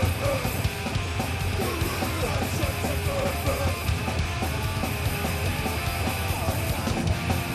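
Loud live punk-metal band music: heavily distorted electric guitar played through Marshall amplifier stacks over fast drums and crashing cymbals, a dense, unbroken wall of sound.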